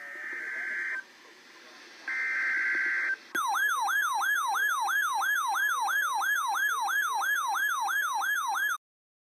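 Two bursts of Emergency Alert System header data tones, each about a second long, a high buzzy warble. Then a siren-like alert tone wails rapidly up and down, about three sweeps a second, and cuts off suddenly near the end.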